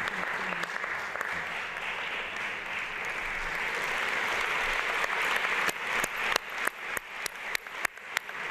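Audience applauding. The applause thins out a little past halfway, leaving a few people clapping close to the microphone, single sharp claps about three a second.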